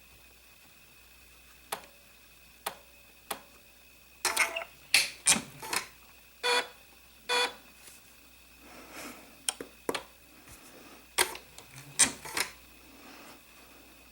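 Front push buttons of a Designer 1 sewing machine being pressed one after another: a few sharp clicks, then from about four seconds in a run of short beeps and clicks.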